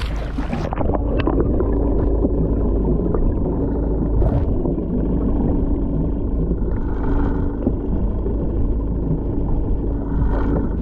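A camera microphone plunging into the sea: a brief splash and hiss, then the muffled underwater rumble of the sea with a steady low hum and scattered faint clicks.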